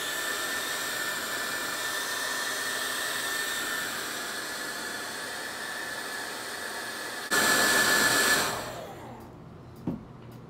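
Handheld hair dryer blowing with a thin high whine, getting louder about seven seconds in, then switched off and winding down. Two small knocks near the end.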